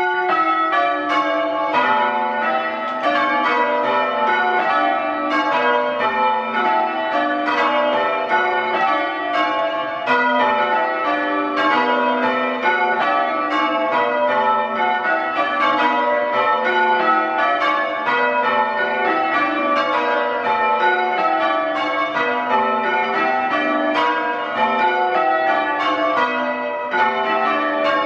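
A ring of six church bells in full-circle change ringing, struck one after another in steady repeating descending rows. Very loud, as heard in the ringing room close beneath the bells.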